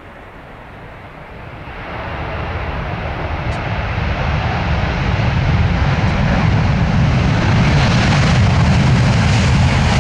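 A vehicle noise, such as an aircraft's engine, growing steadily louder as it approaches, swelling from about two seconds in and filling in higher pitches as it nears.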